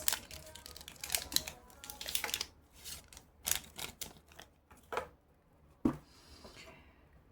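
Panini sticker packet being opened and handled: a dense run of crackles and rustles from the wrapper and stickers that thins out after about five seconds, with one sharp click about a second later.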